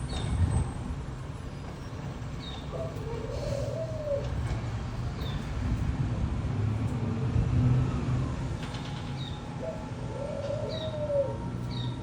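Birds calling: a low, rising-and-falling call heard twice, with short high chirps every second or two, over a steady low rumble.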